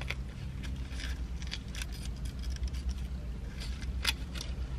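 Mouth sounds of biting and chewing a burrito, with scattered crinkles of its aluminium-foil wrapper, over a steady low hum.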